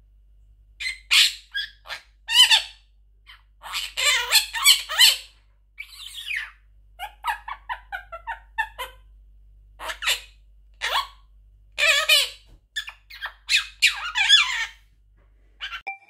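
Monk parakeet (Quaker parrot) chattering and squawking in short bursts, mimicking the word "peekaboo" and imitating human laughter with a run of quick, evenly spaced "ha-ha" notes around the middle.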